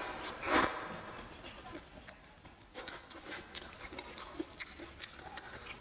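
A person slurping fried rice noodles: one loud slurp about half a second in, then chewing with many small wet mouth clicks.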